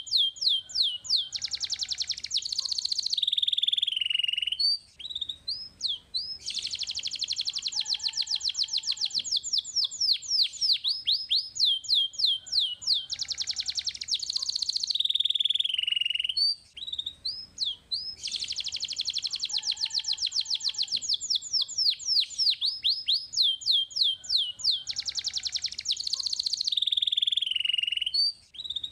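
Domestic canary singing a fast song of rapid sweeping notes and long rolling trills, broken by short pauses twice; the same song sequence repeats about every twelve seconds, as a looped stimulation recording for training young canaries.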